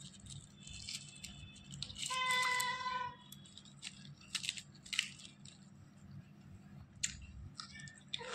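A domestic cat meowing once: one long, level meow about two seconds in, followed by a few sharp clicks.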